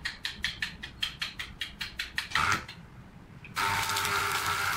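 Electric arc welding on a steel plate seam: the electrode is scratched and tapped to strike the arc, which sputters on and off in quick crackles, about seven a second. After a short pause, about three and a half seconds in, the arc catches and burns with a steady crackling hiss.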